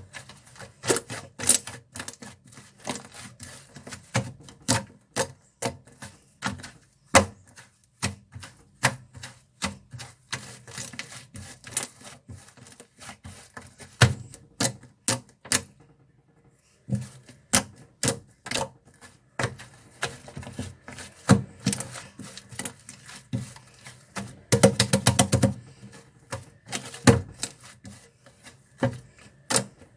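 Toffee slime being squished and poked by hand, making sharp sticky clicks and pops at an uneven pace, with a short pause about halfway and a quick run of crackles a little before the end.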